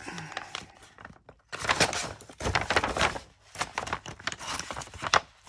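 Scissors cutting through a brown kraft paper bag, in a series of cuts with the stiff paper crinkling and rustling as it is handled.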